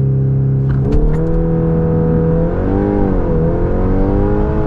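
Volkswagen Golf R's turbocharged 2.0-litre four-cylinder engine running under load with a clear droning note, its pitch mostly steady, stepping up about a second in and then rising and dipping twice.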